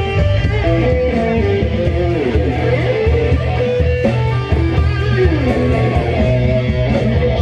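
Rock music playing, carried by guitar over a steady bass line, with bending, gliding guitar notes and no singing.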